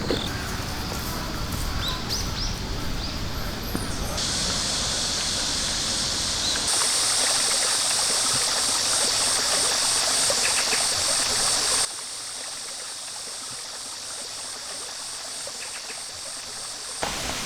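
Outdoor ambience in several abruptly cut takes, dominated by a steady high insect chorus of crickets that is loudest from about four to twelve seconds in, then drops suddenly to a softer background hush.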